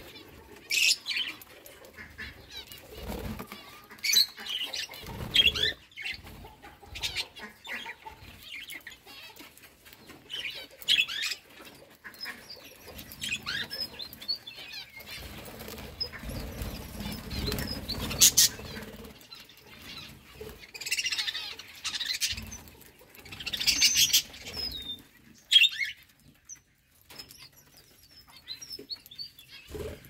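Budgerigars chirping and chattering in many short, high calls, mixed with quick wing flutters and clicks. The calls thin out near the end.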